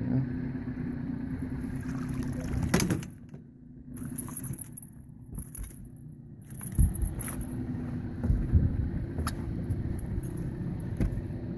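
Small boat motor running steadily at low trolling speed, its hum fading for a few seconds midway, with a few knocks and some rattling over it.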